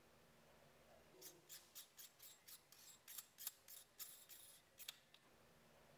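A Nikon 180mm Ai lens barrel being turned and handled in gloved hands: a faint run of about a dozen short, crisp scraping strokes, roughly three or four a second. The strokes start about a second in and stop about a second before the end.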